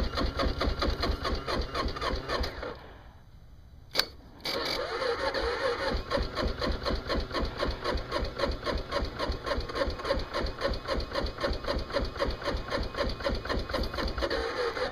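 Kawasaki KLR's single-cylinder engine being turned over by its electric starter on a cold start, an even rhythm of pulses. The cranking stops about three seconds in, a single click follows about a second later, and then the cranking starts again and keeps going.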